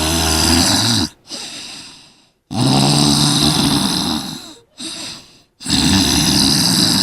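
Human snoring: three long, loud snores about three seconds apart, each followed by a softer breath out.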